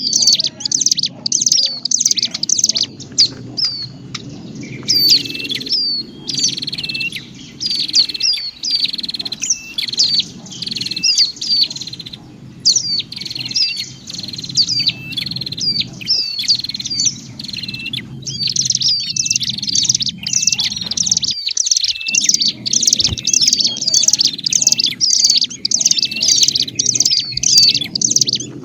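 Busy, rapid chirping calls of ciblek gunung (a prinia) mixed with prenjak calls, a lure recording played to draw wild birds down to a trap. The chirps come in quick runs with short pauses, over a steady low hum.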